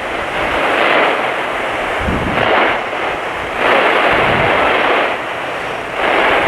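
Loud radio static from a weather radio receiver: a harsh hiss that swells and dips irregularly as the reception fades in and out.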